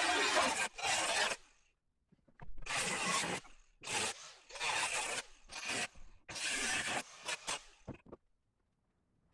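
Several short rasping scrapes on sheet metal in quick succession, each lasting about half a second to a second, stopping near the end.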